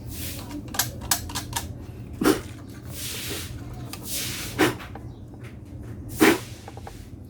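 Hand-tool work on a speaker before soldering: short scraping strokes and small clicks, with three sharp knocks about two seconds apart.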